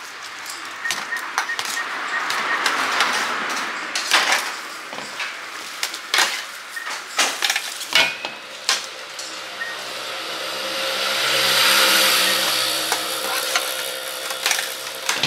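Egg and noodles frying in a wok: a steady sizzle that swells about ten seconds in, with scattered clicks and clinks of metal tongs and a spatula against the wok and the steel trays.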